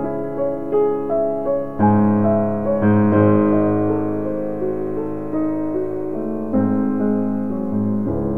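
Piano music: slow single notes over held chords, with new chords struck about two, three and six and a half seconds in.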